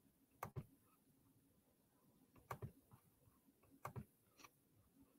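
Faint sharp clicks over near silence, coming in quick pairs: three double clicks about a second or two apart, then a lighter single click.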